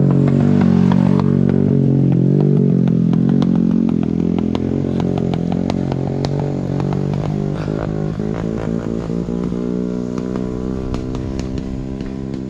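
A small engine running steadily at low revs, slowly fading, with scattered sharp ticks over it.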